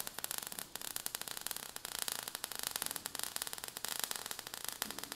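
Sound effect of sparks crackling and fizzing, a dense, irregular run of tiny clicks and hiss.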